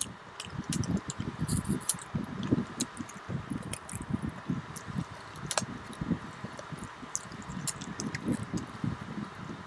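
Close-miked wet chewing of mutton paya (goat trotter) curry with rice, with frequent soft squelches and sharp mouth clicks, and the squish of fingers working through rice and gravy on the plate.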